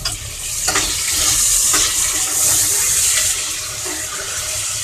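Onions and chopped tomatoes frying in hot oil in a pressure cooker, a steady sizzle that swells about a second in as the tomatoes go in, then eases off.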